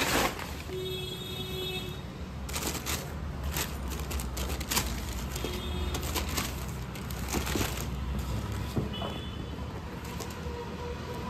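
Steady low rumble of road traffic, with scattered knocks and a few brief high-pitched toots.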